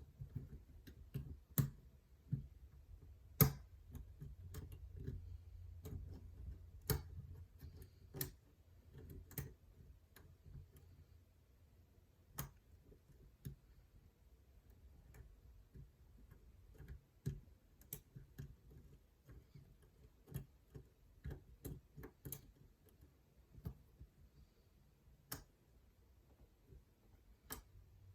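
Hook pick and tension wrench single-pin picking a Brinks mortise lock: irregular small metallic clicks and ticks as the pins are lifted and set, a few sharper ones scattered through, over a faint low hum.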